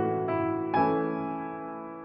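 Slow, soft background piano music: a few notes struck near the start and again about three-quarters of a second in, each left to ring and fade.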